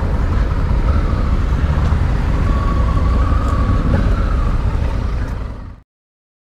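Riding noise on a Honda Africa Twin CRF1100 motorcycle: a steady, heavy low rumble of the engine and wind on the microphone while under way. It fades out quickly about five and a half seconds in.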